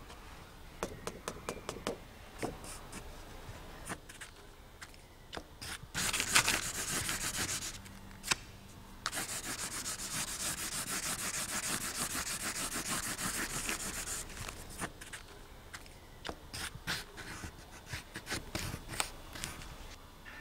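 A dark drawing stick scrubbed fast back and forth across paper, laying down a grainy tone. It comes in two long stretches, the second about five seconds long, with light taps and paper handling before and after.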